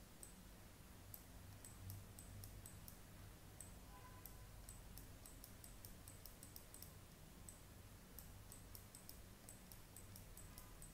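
Faint computer mouse clicks, irregular and several a second, over a low steady room hum.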